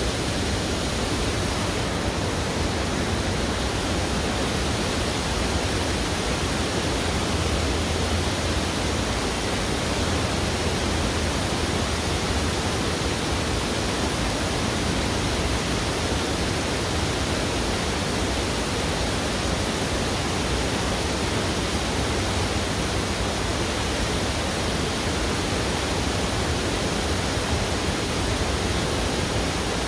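Steady rushing of a fast-flowing river current, an even roar of water that doesn't change.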